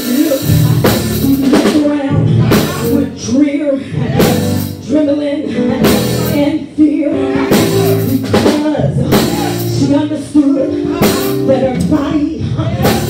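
Live church band music with drum kit, bass and guitar, and a voice singing over it through the PA.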